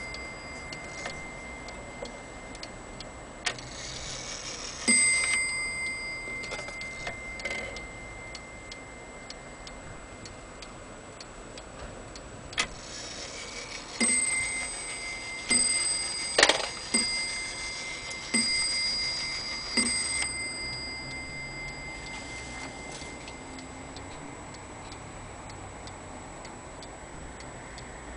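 Franz Hermle platform-escapement wall clock ticking quickly while its gong is struck: a single ringing blow near the start and another about five seconds in, then five blows about a second and a half apart, each ringing on and fading. A sharp click falls among the strikes.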